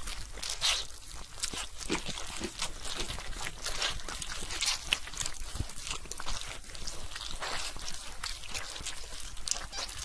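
Zombie eating sound effect: wet squelching and crunching, like flesh being torn and chewed, heard as a dense run of irregular crackles and smacks.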